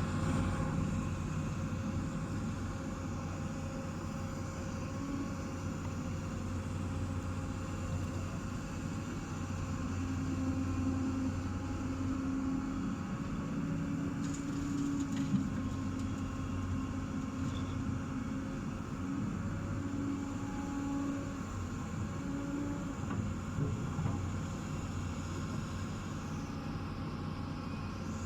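Heavy machinery engine running steadily with a low hum, joined by a higher pitched drone from about ten seconds in until after twenty seconds.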